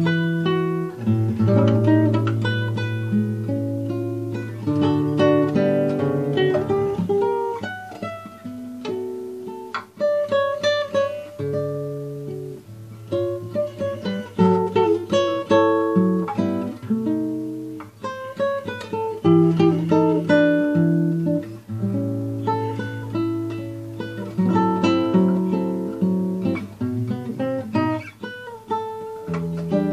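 Solo classical guitar being fingerpicked: chords and a melody plucked over held bass notes, in phrases with short pauses about a third and two-thirds of the way through.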